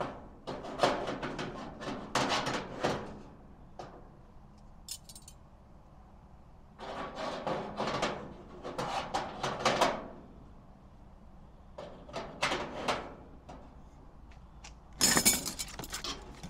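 Metal parts of a vertical smoker clinking and rattling as they are handled and fitted during assembly. The sound comes in several separate spells, with a brighter jangle near the end.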